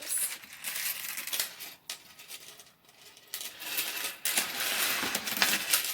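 Small metal chains and hooks jingling and clinking as they are handled, with louder, denser rattling in the second half.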